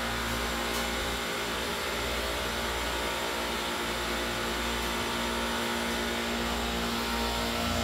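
Centralized refrigeration rack's compressors running steadily after start-up: a constant mechanical drone with a steady hum.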